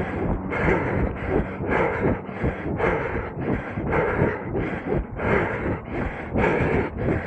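A runner's own footfalls and breathing heard from a body-carried camera, in a steady rhythm of about two to three beats a second.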